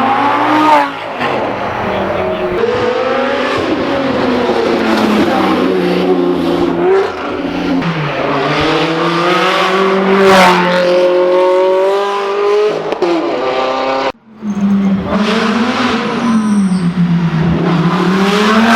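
Supercar engines running loud and hard, the pitch sweeping up and down as they rev and accelerate, with one long rising pull. The sound breaks off abruptly about fourteen seconds in and picks up again with another engine revving.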